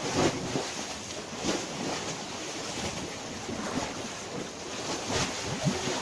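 Small waves of the Mediterranean washing onto the beach, swelling every second or two, with wind rushing on the microphone.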